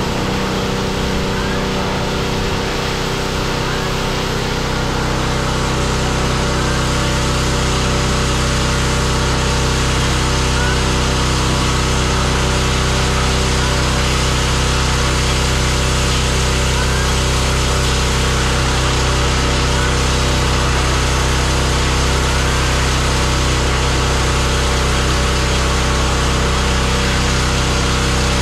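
Pressure washer running steadily: an even engine drone with the hiss of the water spray over it, growing a little louder and steadier about four seconds in.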